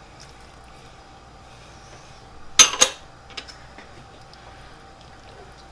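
Two quick glassy clinks about a fifth of a second apart, some two and a half seconds in: a small glass bowl knocking against a hard surface after its saffron water has been emptied into the soup pot.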